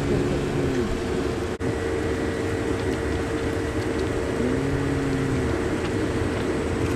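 Kintetsu electric train at the depot: a steady electrical hum, with a short tone that rises and falls twice, about four seconds apart.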